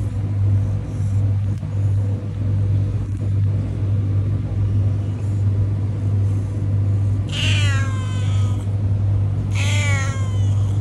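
Stray cat meowing twice near the end, two drawn-out meows about two seconds apart, over a steady low hum.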